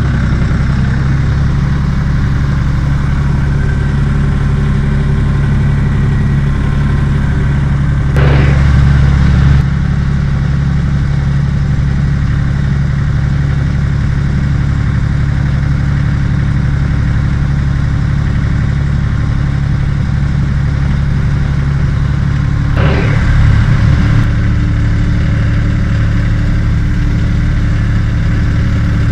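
Truck engine running steadily while driving with a trailer in tow, briefly louder twice, about eight seconds in and again near 23 seconds.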